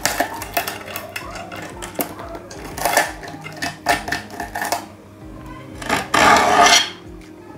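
A blade scraping old silicone from aquarium glass, with broken glass pieces clinking and grating as they come loose. A louder rough scrape lasts almost a second near the end.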